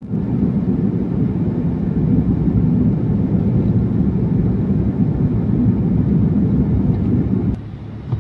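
Steady low rumble of a car's road and engine noise, heard from inside the cabin while driving. It drops noticeably about seven and a half seconds in.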